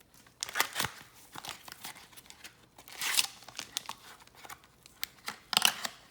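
Trading card pack wrapper being torn open and crinkled by hand, in several separate rustling bursts, the loudest near the end.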